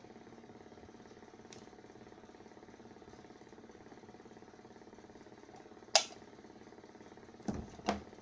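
A steady low mechanical hum, with a sharp click about six seconds in and two knocks near the end.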